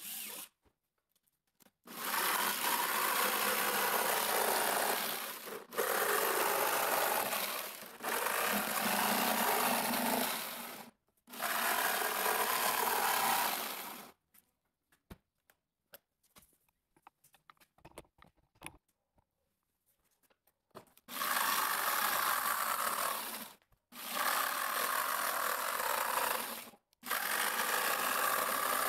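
Corded jigsaw cutting through the wall of a plastic bucket. It runs in bursts of a few seconds with short stops between them, and pauses for about seven seconds midway.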